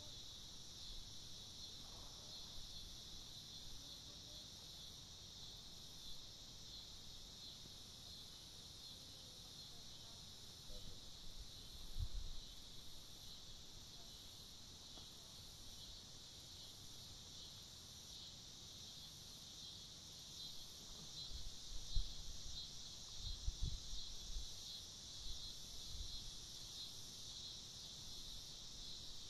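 Steady high-pitched insect chorus, with a few low rumbles about twelve seconds in and several more in the last third.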